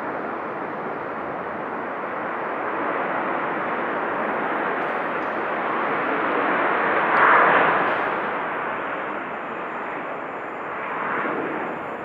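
Boeing 737-800's turbofan engines rushing as the jet rolls out on the runway after touchdown. The steady roar swells to its loudest about seven seconds in, with a smaller rise near the end.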